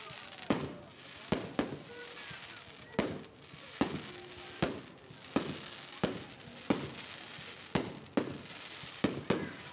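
Aerial fireworks bursting in quick succession: about a dozen sharp bangs, one every half second to a second.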